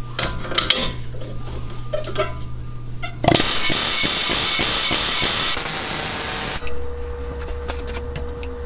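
Aerosol can of Deep Creep penetrating oil spraying in one long hiss of about three seconds, starting about three seconds in, soaking a corroded steel bolt seized in an aluminum steering knuckle. Light clinks of tool handling come before it.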